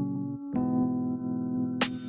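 Background music: sustained electric piano chords, with a new chord about half a second in.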